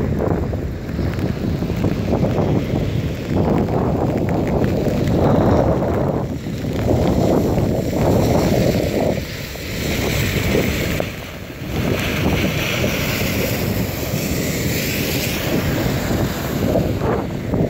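Strong gusty wind buffeting the microphone: a loud low rumble that rises and falls with the gusts, easing briefly a few times.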